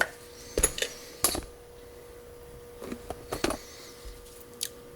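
Scattered light metallic clicks and taps from a mortise lock cylinder and tools being handled, a few at the start, a cluster about three seconds in and one near the end.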